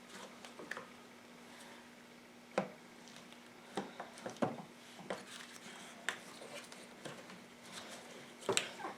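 Irregular clicks, knocks and scrapes of hand tools and plastic parts being worked on a quad's air cleaner housing, with two sharper knocks about two and a half seconds in and near the end, over a faint steady hum.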